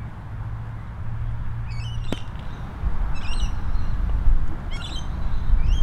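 A single sharp click of a putter striking a golf ball about two seconds in. Short bird calls repeat every second or so, over a low wind rumble on the microphone that grows louder near the middle.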